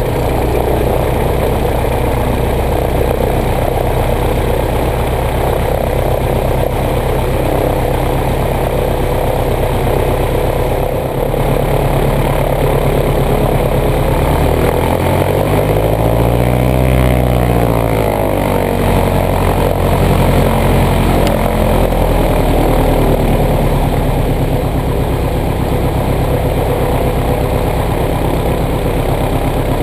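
Single-engine light aircraft's piston engine running steadily at idle just after starting, a low drone with even harmonics. About halfway through the sound swells and its pitch shifts briefly.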